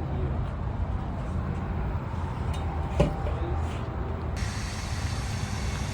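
Steady low outdoor rumble, like distant traffic or wind on the microphone, with one sharp click about three seconds in.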